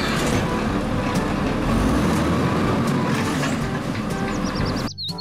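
An automated side-loading garbage truck runs its engine while the hydraulic arm grabs a wheelie bin and lifts it up to the hopper. The steady mechanical noise stops abruptly near the end.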